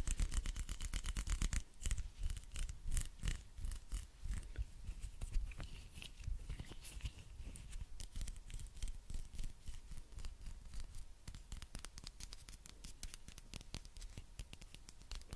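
Fingers and hands rubbing and scratching right at the microphone, a dense run of fast crackly scratches, louder for the first second or two and then softer.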